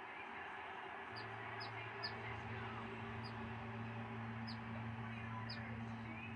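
Small birds chirping with short, high, falling notes, repeated about ten times over a steady wash of ocean surf. A low, steady hum comes in about a second in and fades near the end.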